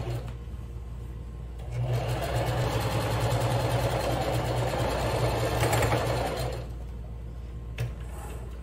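Electric sewing machine stitching a seam. It runs louder for about five seconds in the middle, and a lower, steady motor hum sits beneath before and after.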